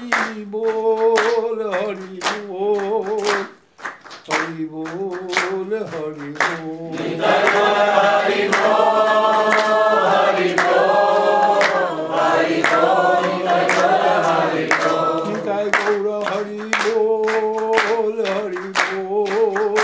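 Devotional kirtan chanting: a lead voice and responding voices sing a call-and-response melody, the sound growing fuller in the middle when the group sings, over steady rhythmic hand clapping.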